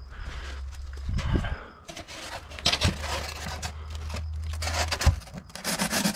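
Polystyrene insulation board rubbing and scraping against a brick wall as it is pressed and shifted into place by hand, in irregular bursts with a quicker run of rasping strokes near the end.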